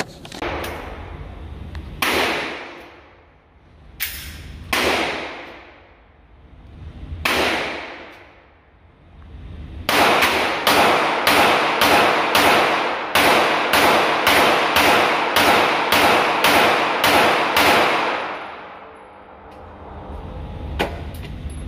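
Gunshots echoing in an indoor shooting range: a few single shots seconds apart, then a rapid string of about sixteen shots at roughly two a second.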